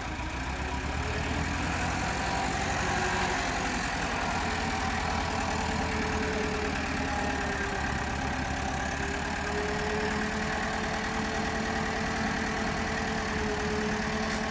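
An engine idling steadily, with a thin steady whine above the engine note.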